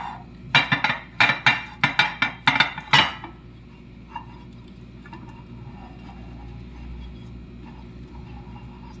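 Glass baking dish clinking and knocking against a granite countertop, about eight sharp knocks in quick succession while butter is rubbed over its inside by hand. After about three seconds the knocks stop, leaving only a faint low hum.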